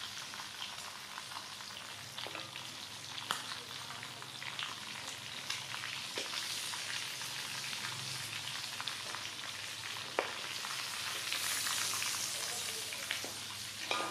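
Quail frying in hot oil: a steady sizzle with scattered crackles and a few sharper pops, the loudest about ten seconds in.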